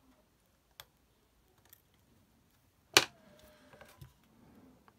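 Small clicks from display flex-cable connectors being pressed onto an iPhone 6S logic board: a faint tick about a second in and one louder sharp click about three seconds in, followed by faint handling rustle.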